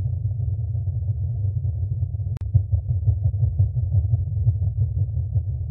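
A steady, deep rumbling drone with no high tones in it, interrupted by a brief click about two and a half seconds in.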